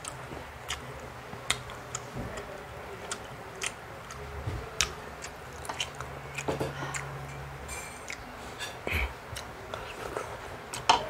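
A person chewing food close to the microphone, with scattered short sharp clicks and crunches. A low hum comes in for a few seconds in the middle.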